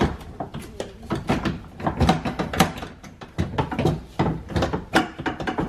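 Repeated knocks, clicks and rattles of a car door's inner module panel being handled and worked into the door shell to hang on its bolt.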